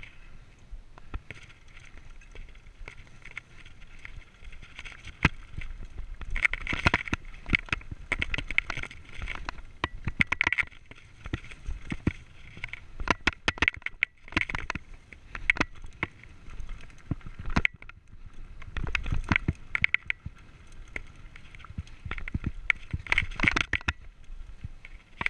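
Mountain bike descending a rocky dirt trail: tyres rolling and crunching over dirt and loose stones, with many sharp clicks and knocks as the bike rattles over rocks. There is a low rumble underneath, busier and rougher from about six seconds in.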